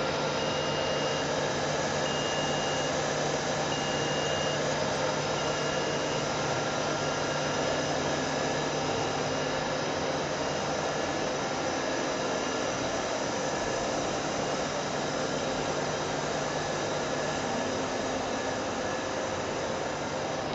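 Steady hum and whir of powered-up machine tools: fans and pumps running without a break. For the first nine seconds or so a short high electronic beep repeats about every two seconds, growing fainter.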